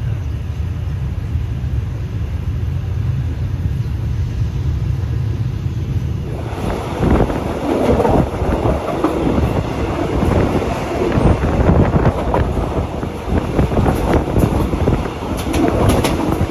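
Steady low rumble of a moving vehicle. About six seconds in, uneven gusts of wind start buffeting the microphone and stay the loudest sound to the end.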